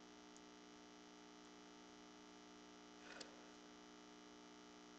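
Near silence: a steady low electrical hum, with one faint brief noise about three seconds in.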